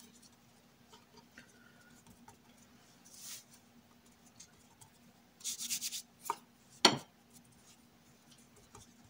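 Hands pressing and rubbing soft dough flat on a floured wooden board: quiet scrubbing with a short run of pats a little after halfway, and a sharp knock on the board about seven seconds in.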